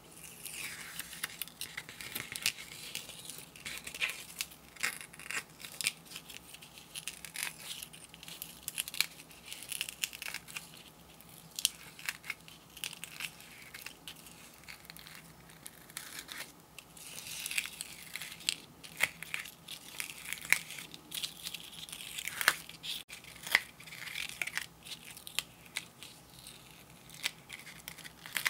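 Thin protective backing strips being peeled off an adhesive sand-art sheet: an irregular run of crackling, tearing rasps and sharp clicks as the film pulls away from the sticky surface and the loose strips crinkle.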